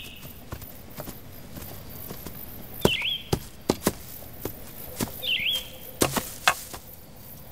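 Footsteps on dry leaf litter and twigs: irregular sharp cracks and crackles. A bird gives a short chirp twice, about two and a half seconds apart.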